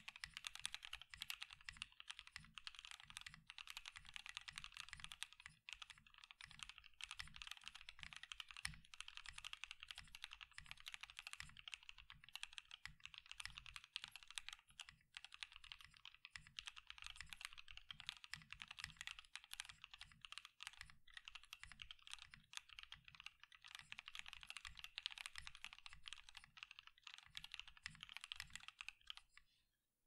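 Fast, continuous typing on a CannonKeys Vida 60% bottom-mount mechanical keyboard with Everfree Curry linear switches, CannonKeys November Fog keycaps and a polycarbonate plate, with no case or plate foam. The keystrokes sound pretty quiet and short, with little ping or hollowness because the case leaves barely any room for the sound to resonate. The typing stops briefly near the end.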